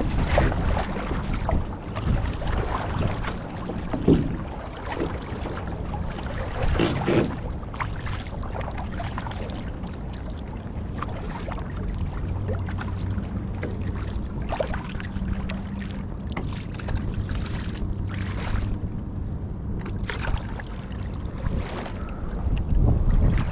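Kayak paddling: the blades of a double-bladed paddle dipping into and pulling through the water in repeated strokes, each entry a short splash, over a steady low rush of water and wind.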